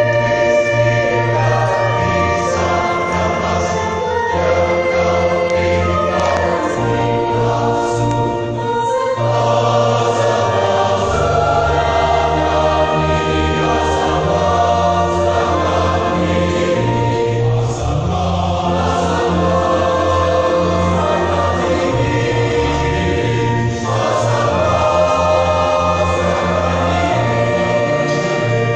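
A church choir singing in several parts, holding sustained chords over steady low notes.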